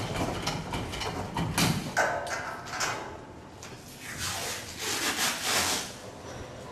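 A hammer knocking on a metal prefab wall panel: many sharp, uneven knocks and rattles.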